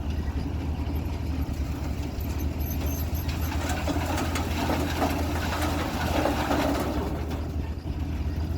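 Tractor engine running steadily. A louder, noisier stretch with clicks comes from about four to seven seconds in.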